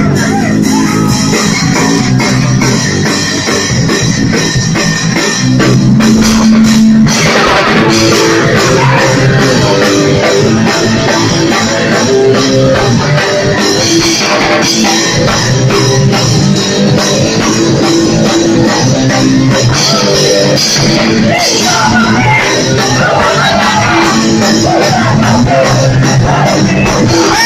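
Live rock band playing loud: electric guitar, bass and drum kit with cymbals, with vocals over it. The sound grows fuller about seven seconds in.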